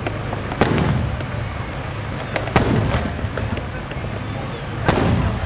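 Aerial firework shells bursting: three loud booms, about half a second in, midway and near the end, each followed by a long rolling rumble, with a few smaller cracks between them.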